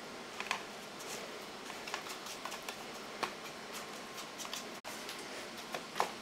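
Dry breadcrumbs rustling and crackling as raw schnitzel is pressed and turned in them by hand, with a few sharper clicks over a faint steady hiss.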